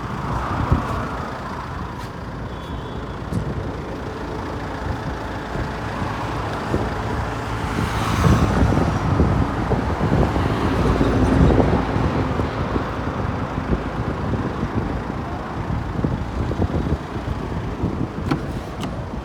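A motor vehicle running, a dense steady noise with most of its weight low down, growing louder about eight seconds in and easing off after about twelve.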